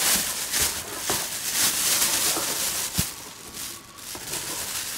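A liquid dye bath being stirred with a plastic scoop in a plastic basin, the liquid swishing, with two sharp knocks about one and three seconds in.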